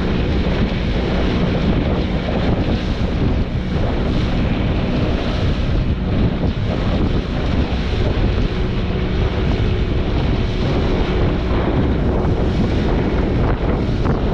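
Wind buffeting the microphone over the rush of sea water, with a faint steady low hum underneath.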